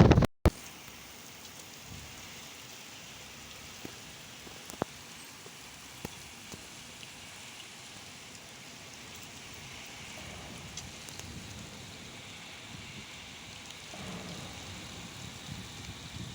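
Steady hiss of rain falling, with a few sharp single drop taps, getting a little louder near the end. A loud burst of wind noise on the microphone cuts off abruptly right at the start.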